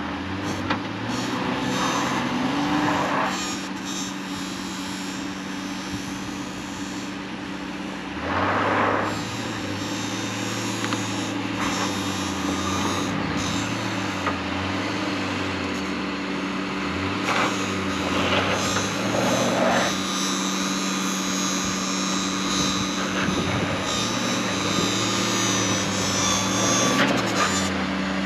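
Honda 3.5-litre V6 engine working in low speed as the all-wheel-drive vehicle crawls up a steep rocky hill, its revs rising and falling repeatedly, with a few louder crunches from the tyres on rock and dirt about eight, seventeen and nineteen seconds in.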